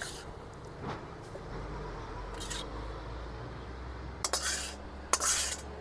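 A few short metal scrapes and clinks of a utensil against a pan or dish, as the finished stir-fry is served, over a low steady background.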